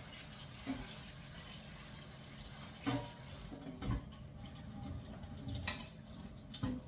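Kitchen water running and splashing, with about five short knocks at irregular intervals.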